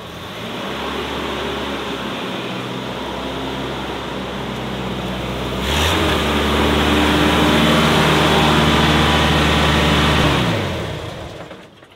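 1986 Mazda B2200 pickup's engine running as the truck reverses out of a garage and pulls away. It gets clearly louder about six seconds in, then drops in pitch and fades near the end.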